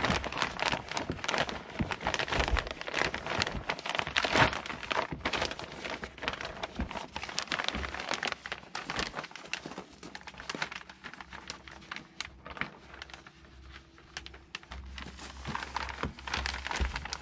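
6-mil polyethylene vapour barrier sheeting crinkling and rustling as it is pulled, tucked and smoothed by hand. The crackling is thick in the first half, thins out, then picks up again near the end.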